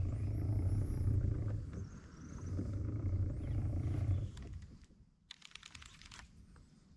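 Baitcasting reel being cranked in two spells, each a low whirring buzz about a second and a half long, with a short pause between. A few faint clicks follow.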